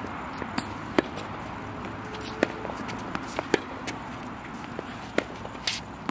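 Tennis rally on a hard court: the ball popping off racquet strings and bouncing on the court, a sharp knock every second or so, some nearer and louder, some from the far end. Shoe scuffs and steps on the court between shots, with a brief scrape near the end.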